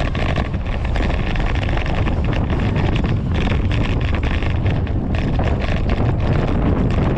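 Wind buffeting the microphone of a camera on a moving bicycle: a steady low rumble with uneven gusty flutter.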